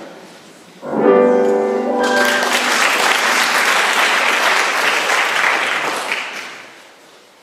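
A held musical note sounds for about a second, then audience applause runs for about four seconds and fades away near the end.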